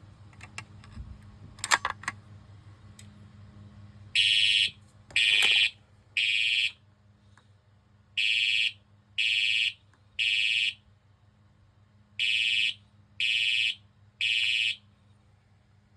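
Fire alarm horn sounding the temporal-three evacuation pattern: three short beeps about half a second each, a pause, and the group repeated, three groups in all starting about four seconds in. A few faint clicks come before it, and a low steady hum runs underneath.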